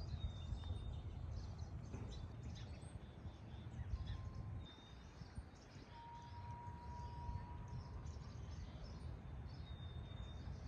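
Faint outdoor ambience: a steady low rumble on the microphone, with a few short, high, thin bird calls. Partway through there is one longer steady whistled tone, lower in pitch.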